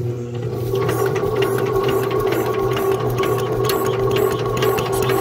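Mini bike's small engine being turned over by an electric starter, a steady whirr with fast even clicking that keeps the same speed throughout, without the engine firing.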